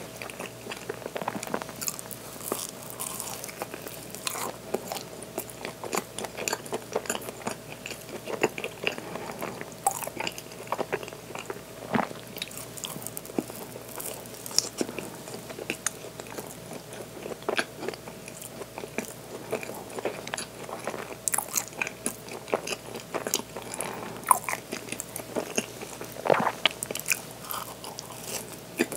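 Biting into and chewing a waffle pastry crusted with coarse zarame sugar, the sugar crystals crunching in many small sharp crackles between softer chewing.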